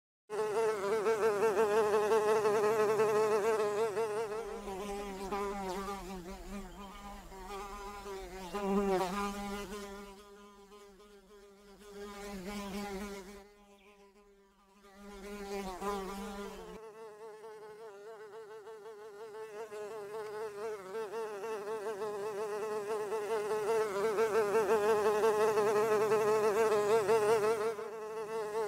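Honey bee wing buzz: a wavering, high hum that is loud at first, fades down around the middle and swells back up near the end, with a lower hum underneath in the middle stretch.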